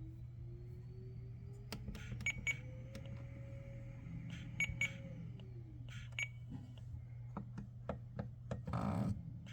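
Short electronic beeps and clicks from a FrSky ETHOS radio transmitter as its keys and touchscreen are pressed to move through menus, some beeps coming in quick pairs, over a steady low hum. A faint tone slowly climbs in pitch and falls away about six seconds in.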